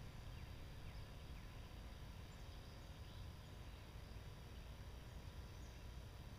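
Faint outdoor ambience: a steady low rumble with a few faint, short high chirps scattered through it.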